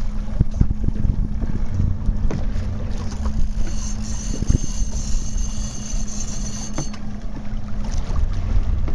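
Sportfishing boat's engine running steadily, with wind buffeting the microphone and occasional knocks. A thin high-pitched whine comes in for about three seconds in the middle.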